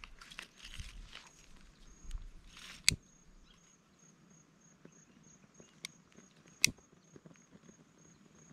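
Dry kindling and grass rustling under hands, then a lighter clicking as it is struck to light a small campfire: a sharp click about three seconds in and another near the end. From about three seconds in, an insect chirps steadily, about three pulses a second.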